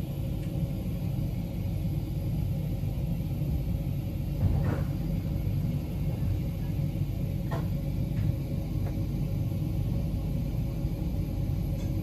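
Steady low rumble of the MOB GoldenPass panoramic train running, heard from inside the carriage, with a few faint clicks.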